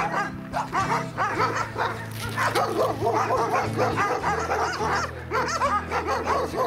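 Several dogs barking and yipping in quick succession, with no letup. Background music with sustained chords plays underneath.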